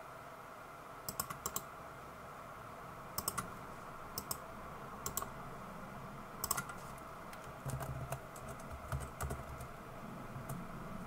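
Scattered computer mouse clicks and keyboard keystrokes, some in quick pairs, over a steady faint background hiss.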